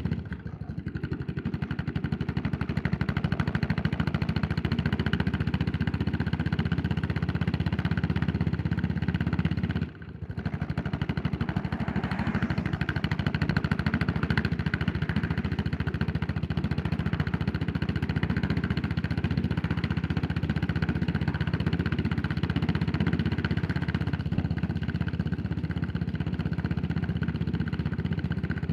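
Yamaha SR400's air-cooled single-cylinder four-stroke engine running under way, a steady thumping pulse that briefly dips twice, about half a second in and about ten seconds in.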